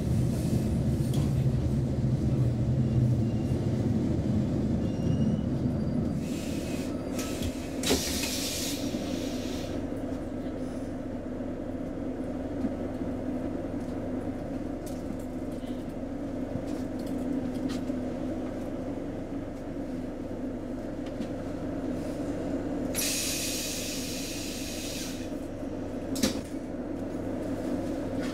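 Inside the passenger car of a Roslagsbanan X10p electric train: a low rumble that is louder for the first six seconds, then a steadier hum. Over it come two hisses of two or three seconds each, about seven seconds in and again near the end, and a couple of sharp clicks.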